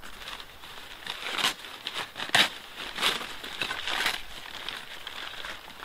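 Paper crinkling and rustling in irregular bursts as it is crumpled and torn by hands taped together at the wrists, the loudest crackle about two and a half seconds in.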